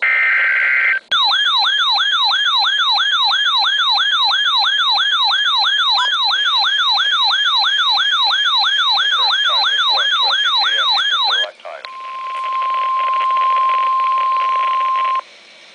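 A weather alert radio's siren warbles rapidly, sweeping up and down about twice a second, for about ten seconds; it follows a short burst of SAME digital data tones from the broadcast. After it stops, the NOAA Weather Radio 1050 Hz warning alarm tone sounds as one steady pitch for about three seconds.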